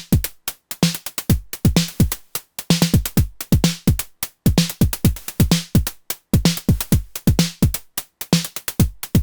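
Electronic drum-machine groove for acid techno at 128 bpm, from the Moog DFAM and Elektron Syntakt: a steady pattern of pitched percussive hits that drop sharply in pitch, with hiss-like hat and snare hits between them and no sustained synth line.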